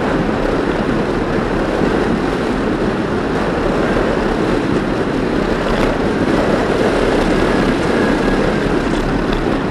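Wind buffeting the microphone of a camera on a fast-moving bicycle: a steady, loud rushing rumble.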